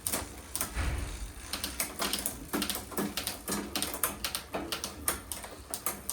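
Irregular run of sharp clicks and light knocks, several a second, like parts or tools being handled.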